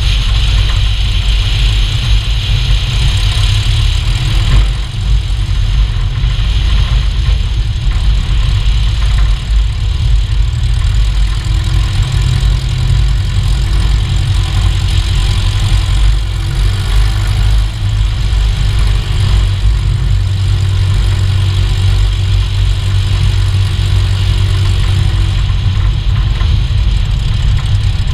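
Van's RV-7 light aircraft rolling along a hard runway, heard from a camera under the wing: a steady heavy low rumble of engine, wind and main gear wheel on the asphalt, with a faint steady tone in the middle part. The rumble carries the main gear's shimmy vibration, which wooden gear-leg stiffeners have reduced but not cured at slower speeds on the hard runway.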